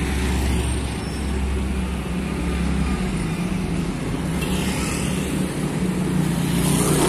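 Road traffic: a heavy truck's diesel engine runs with a steady low hum that drops away about three seconds in as the truck moves off. Motorbikes then pass close by, twice swelling and fading.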